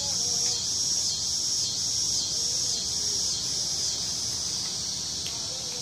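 Loud insect chorus: a steady high-pitched buzz that swells and dips about twice a second.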